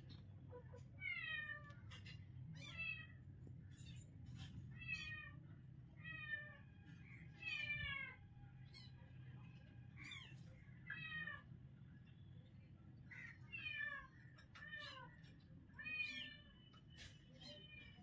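Very young kitten mewing over and over: a dozen or so short, high-pitched mews, each falling in pitch, a second or two apart, over a faint steady low hum.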